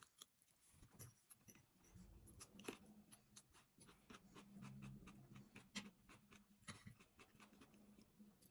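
Faint eating sounds: scattered small clicks and mouth noises of chewing, over a faint low hum.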